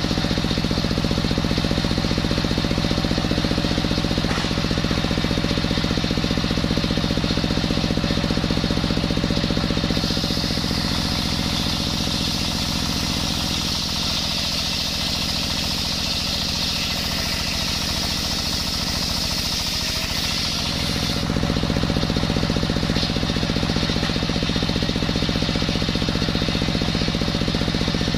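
Stationary engine running steadily, belt-driving a circular saw blade. For about ten seconds in the middle the blade rips lengthwise through a coconut log, adding a high hissing whine, and the engine's note shifts under the cutting load.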